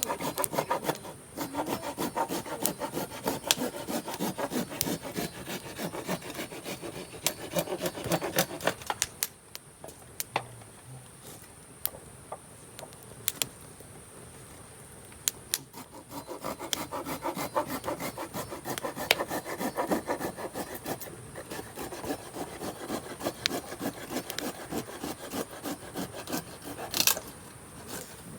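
Hand saw cutting cedar wood in quick back-and-forth strokes, in two long bouts with a pause of several seconds between them.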